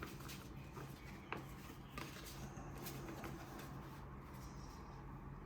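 Faint rustling of trading cards and packaging being handled, with a few light clicks and taps, over a low steady room hum.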